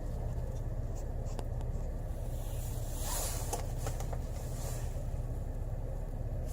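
Car engine idling steadily, heard from inside the cabin, with a few faint clicks and a brief hiss about three seconds in.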